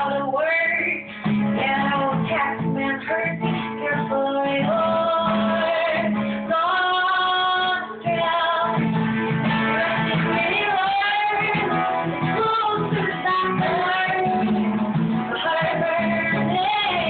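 A woman singing a song while playing an acoustic guitar, her voice holding some long notes with vibrato, the clearest about seven seconds in.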